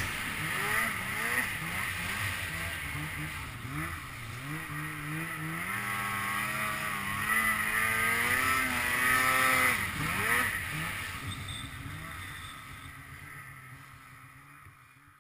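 Snowmobile engine revving up and down as the sled rides through deep snow, its pitch rising and falling, fading out over the last few seconds.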